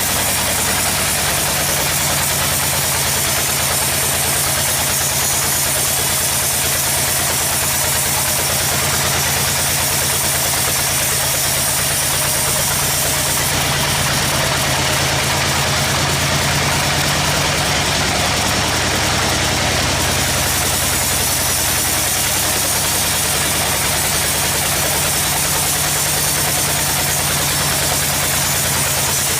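Sawmill machinery running steadily: an even engine drone with a steady hiss above it.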